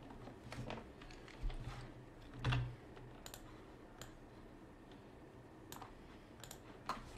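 Scattered key presses and clicks on a computer keyboard, about eight irregular taps, the loudest about two and a half seconds in.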